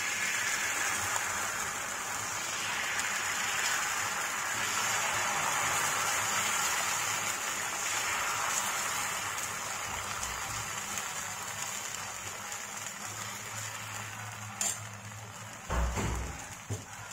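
Thin, watery dosa batter sizzling as it is ladled onto a hot oiled dosa griddle, a steady crackling hiss that slowly dies down as the batter sets. Near the end there is a sharp click followed by a few low knocks.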